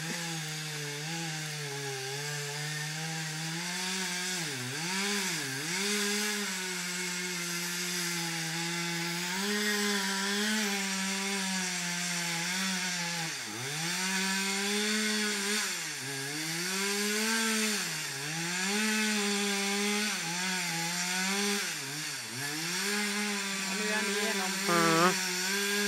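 Two-stroke chainsaw running at high revs, cutting into a tree trunk, its pitch dropping and recovering again and again as it works. Near the end, a brief louder sound with a rising pitch cuts in.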